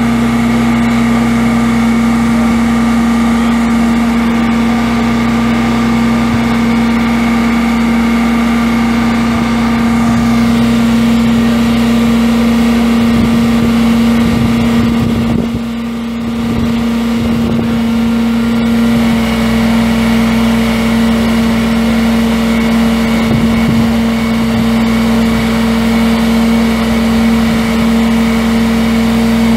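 The truck's Cummins six-cylinder turbo diesel engine running at a steady speed, with a strong steady whine over it. The level dips briefly about halfway through.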